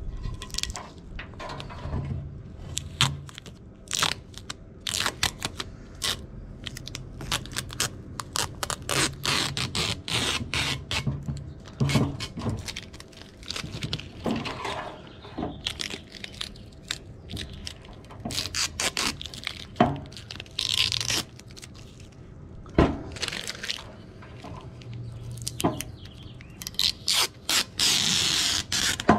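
Plastic protective film and tape being peeled off a trim piece and crumpled in the hand: many sharp crackles and snaps, with longer tearing rips about 20 seconds in and near the end.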